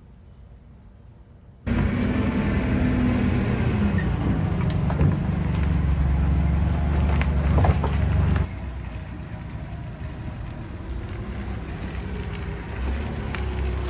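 Quiet at first; then, about two seconds in, the loud, steady rumble of a motor vehicle running starts abruptly. It eases off somewhat past the middle and goes on.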